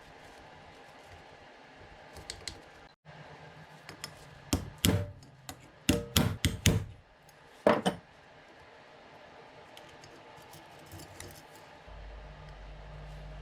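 Metal tools and engine parts clinking and clattering, with a burst of sharp clanks in the middle and a low hum between them.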